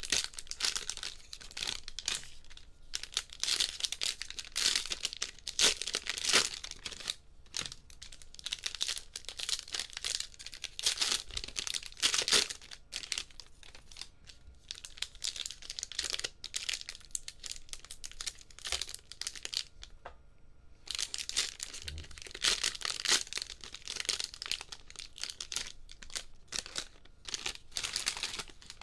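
Plastic wrappers of 2022 Bowman baseball card value packs being torn open and crinkled by hand, in repeated bursts with short pauses between packs.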